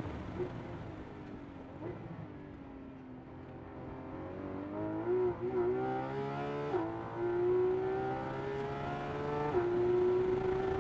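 Porsche 911 GT3 RS flat-six engine heard from inside the cabin. It gives two short throttle blips on downshifts in the first two seconds under braking, then pulls hard from low revs with a rising pitch. Two upshifts, about seven and nine and a half seconds in, each drop the pitch sharply before it climbs again.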